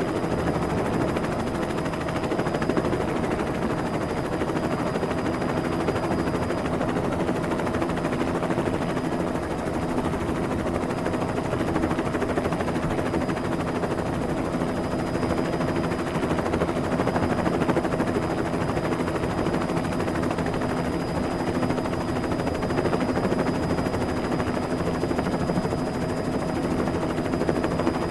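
Helicopter sound effect: a steady, fast rotor chop over a constant engine hum.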